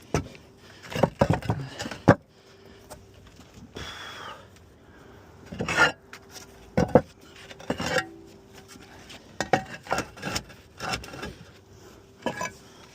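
Roof tiles knocking and scraping against each other as they are slid and set back into place, in irregular bursts of clinks and scrapes with short pauses between.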